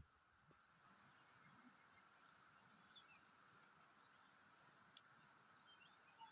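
Near silence: faint outdoor ambience with a few brief, distant bird chirps.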